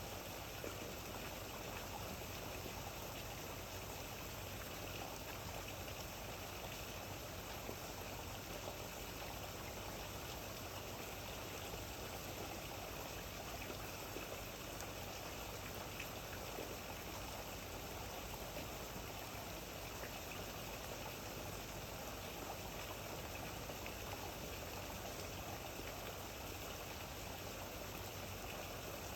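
Steady rain falling: an even wash of noise with faint drop taps scattered through it.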